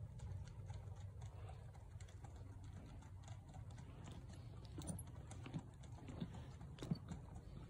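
Faint, irregular clip-clop of three horses walking on a paved road, with a few sharper hoof strikes in the second half, over a low steady rumble.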